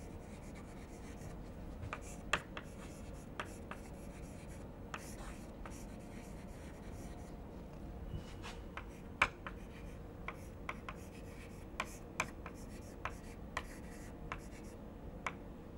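Chalk writing on a chalkboard: irregular taps and short scratches of the chalk as words are written, over a faint steady hum.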